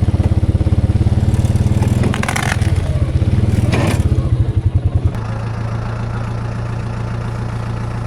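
An engine running with a fast, heavy pulsing beat, with two clattering knocks around two and four seconds in. A little after five seconds the pulsing stops and the engine runs on evenly at idle.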